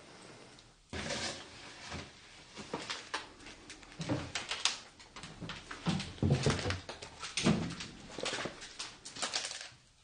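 Footsteps crunching and scuffing over scattered debris on a concrete floor, with irregular scrapes and rustles and a few dull knocks.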